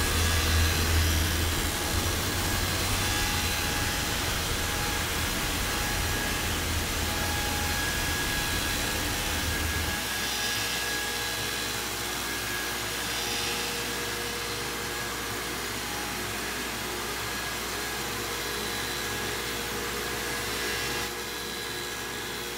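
Propeller-carving lathe running steadily, its spinning cutter head making the final cut along a wooden propeller blade, with the shop's dust collector blowing. A deep hum drops away about ten seconds in and the machine noise carries on a little quieter.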